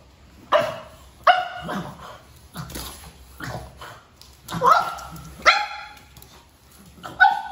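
A pug puppy barking in about nine short, sharp barks at irregular intervals. These are fearful alarm barks at an unfamiliar object.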